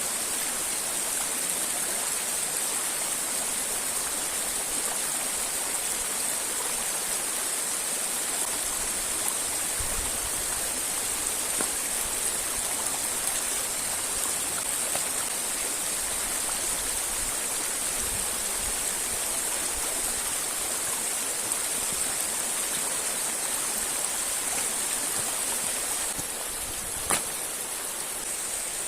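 Steady rush of a river and its waterfalls flowing, a constant even hiss of water. A single sharp click sounds near the end.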